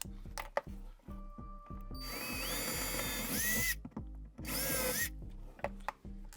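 Power drill driving into the wooden cabinet wall in two bursts, a longer one about two seconds in and a short one near the end, its motor whine rising in pitch as it spins up each time. Background music with a steady beat plays underneath.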